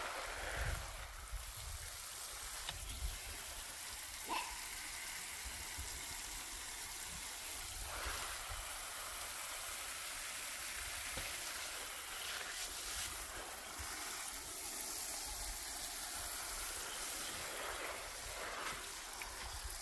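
Steady hiss of water spraying from a garden hose onto a raised vegetable bed, with wind buffeting the microphone in low gusts.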